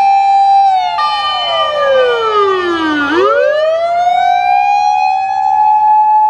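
Fire engine sirens wailing as the trucks pass, several overlapping. The main tone holds steady, falls in pitch over about two seconds, then rises again and levels off.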